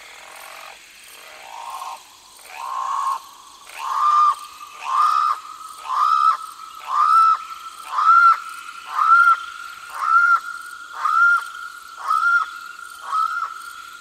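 Channel-billed cuckoo calling: a series of about a dozen loud repeated notes, about one a second, each sweeping up and holding its pitch. The calls build in loudness over the first four seconds and ease slightly near the end.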